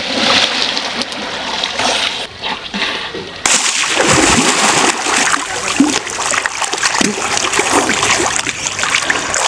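Water splashing as a bather plunges into a pool and then thrashes about while bathing and swimming. The splashing is loud and runs on unevenly, with a sudden change about three and a half seconds in.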